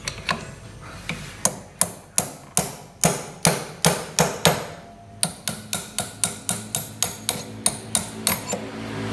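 Hammer blows on a flywheel puller screwed into a Honda Supra X 125's alternator rotor, shocking the rotor loose from the crankshaft. Sharp metallic strikes come about three a second, pause briefly halfway through, then follow quicker at about four a second.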